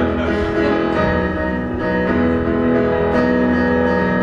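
Piano playing the slow introduction to a ballad, held chords changing about once a second.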